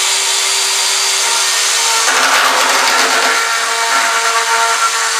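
Bosch EasyCut 12 cordless mini chainsaw running steadily as its blade cuts through a plastic conduit pipe. The rasp of the cut grows rougher and louder about two seconds in.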